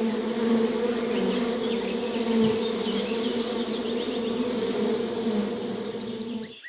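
A bee buzzing steadily, a low even hum with a strong overtone, with faint high chirps above it.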